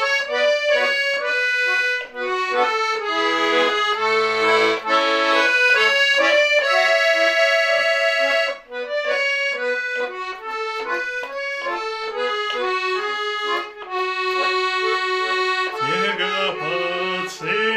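Garmon (Russian button accordion) playing an instrumental passage: a melody over chords with short bass notes.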